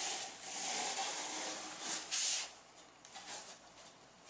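Large sheet of sponge foam being cut apart, a rasping hiss that runs for about two seconds, with one short burst just after, then only faint rustles.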